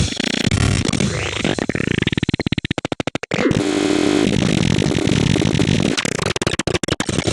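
Dense, chaotic synthesized MIDI music, a 'dark MIDI' arrangement of an iPhone ringtone. Broad pitch sweeps rise and fall, and there are fast stuttering passages where the sound chops on and off. It breaks off for an instant about three seconds in.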